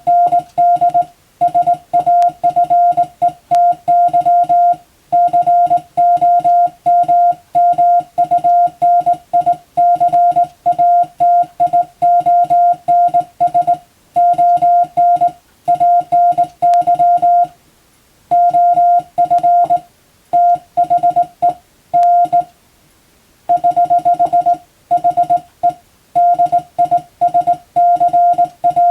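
Morse code (CW) sent by hand on a telegraph key, heard as a single steady beep switched rapidly on and off in dots and dashes. Short pauses fall between groups, with a longer pause about two-thirds of the way in. It is spelling out Latin-alphabet telegram text as sending practice.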